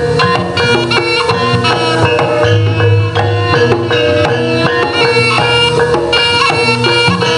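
Live East Javanese jaranan ensemble music: kendang hand drums drive a busy rhythm under a held, reedy slompret shawm melody and ringing gong-chime tones.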